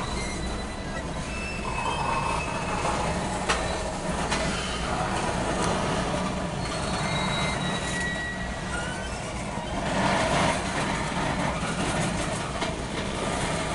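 Loaded coal train's hopper cars rolling past with a steady rumble of steel wheels on rail. Brief thin, high-pitched wheel squeals come and go, with a couple of sharp clanks.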